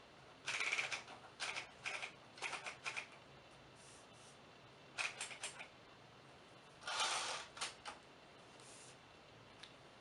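Typewriter keys being struck in short irregular clusters of a few strokes each, with pauses of a second or two between the groups.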